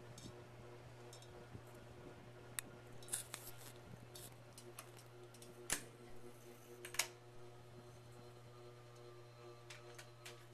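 Hugger ceiling fan motor running with a steady hum and the bearing noise the owner points out, a sign of noisy motor bearings. Several sharp clicks and ticks come through, the loudest a little over halfway through.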